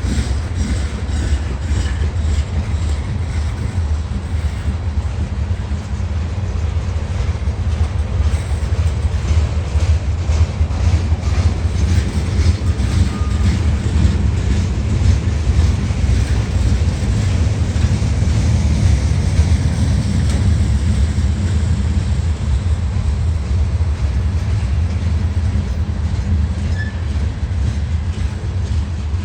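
Freight train moving through a rail yard: the locomotives' diesel engines make a steady low drone while the wheels click over rail joints in a regular rhythm that thins out over the second half.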